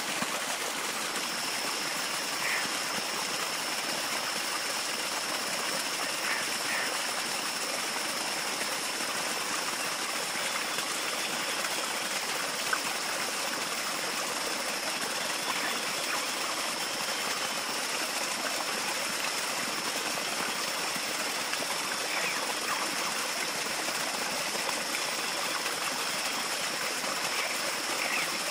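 Steady rushing of running water, like a stream, with a thin steady high-pitched tone above it from about a second in.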